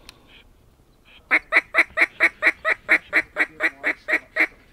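A fast, even run of about fifteen loud, honk-like waterfowl calls, roughly four or five a second, starting about a second and a half in.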